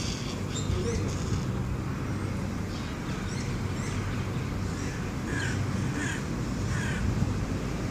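Hooded crow cawing: a series of short caws about half a second apart in the second half, over a steady low background hum.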